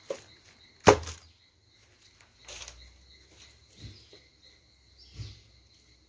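Cut firewood logs dropped onto dry grass: one sharp knock of wood about a second in, followed by a few softer knocks and rustles.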